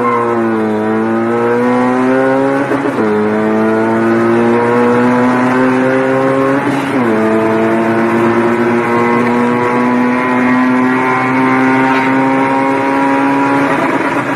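Car engine heard from inside the cabin, accelerating hard through the gears. Its pitch climbs steadily in each gear and drops sharply at the upshifts near the start, about three and seven seconds in, and near the end.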